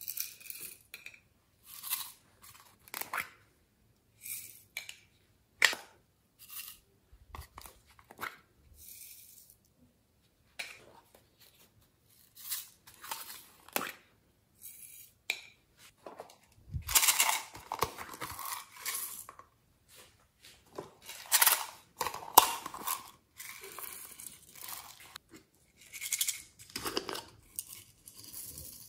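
Small plastic shaker containers and a plastic mould being handled and tapped while glitter and sequins are shaken out of them onto slime: scattered clicks and brief rustling bursts, busiest and loudest past the middle.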